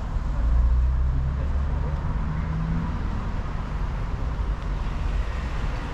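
City street traffic: a passing motor vehicle's engine hum, strongest in the first three seconds and rising a little in pitch, over steady traffic noise.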